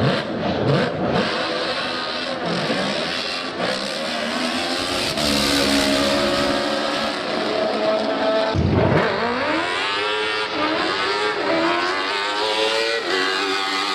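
Drag kart powered by a Honda CBR600 motorcycle engine accelerating hard down the strip at high revs, the engine note climbing repeatedly through the gears in the second half.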